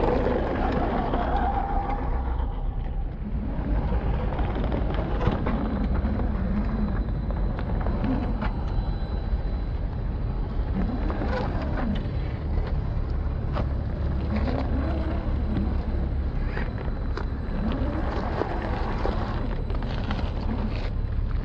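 Electric drive motor of a radio-controlled scale crawler truck whining up and down in pitch as it is throttled on and off over rough ground, with tyres crunching and clicking on loose gravel.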